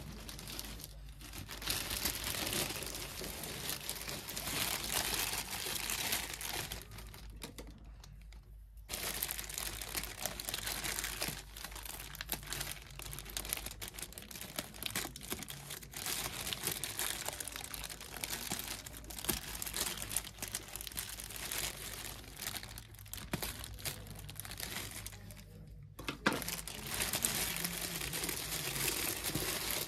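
Clear plastic bag wrapping being crinkled, cut and pulled open by hand, a near-continuous crackle that pauses briefly twice.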